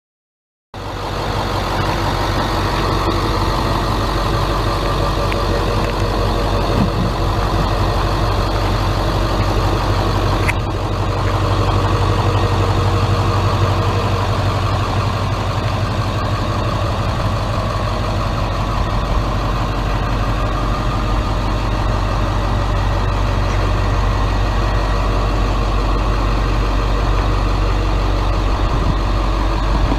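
A 1996 Blue Bird school bus's International T444E 7.3-litre V8 turbo-diesel idling steadily. The sound cuts in abruptly just under a second in.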